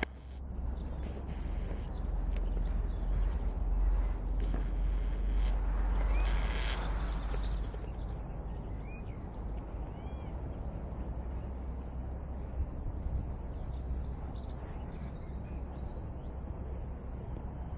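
Small birds chirping and singing in short repeated phrases over a steady low rumble, with a louder rush of noise about five to seven seconds in.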